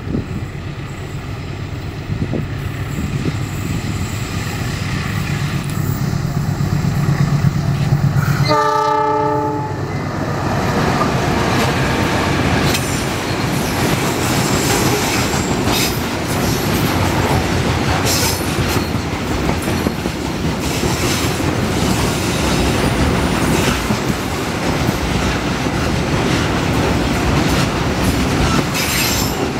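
A diesel freight locomotive approaching with its engine rumbling, sounding one short horn blast about nine seconds in. Then the long train of freight wagons runs past with a steady clatter of wheels over the rail joints.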